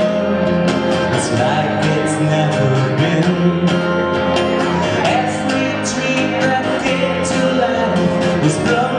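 Live band music in a country-tinged rock style: guitar with drums keeping a steady beat of cymbal hits, and some male vocals.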